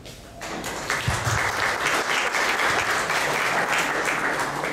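Audience applauding, starting about half a second in and tailing off at the end.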